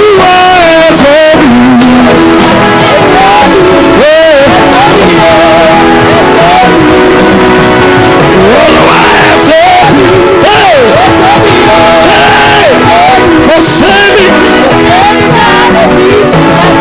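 Gospel praise music with a singer's voice over a band, loud and even throughout.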